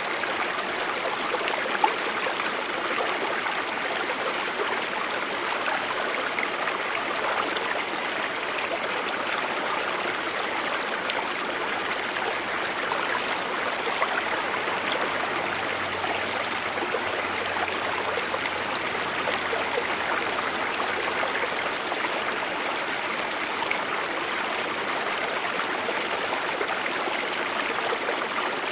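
Rushing water of a mountain river, a steady, even noise throughout, with one brief click about two seconds in.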